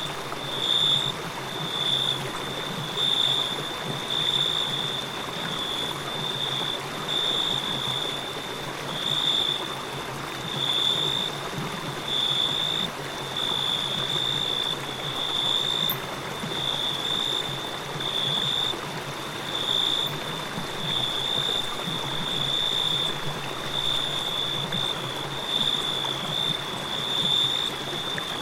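A river flowing steadily, with crickets chirping over it in a high, even trill that pulses about once a second.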